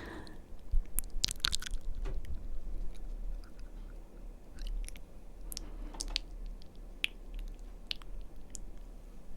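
Close-miked ASMR mouth sounds: wet tongue and lip clicks at irregular intervals, with a quick cluster of them about a second in.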